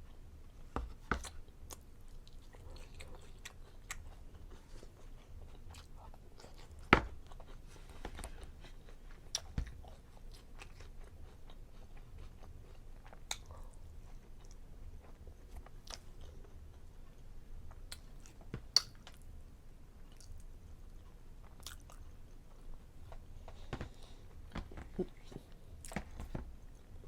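Close-up chewing and mouth sounds of someone eating, with scattered sharp clicks and a few louder knocks, the loudest about seven seconds in and again near nineteen seconds.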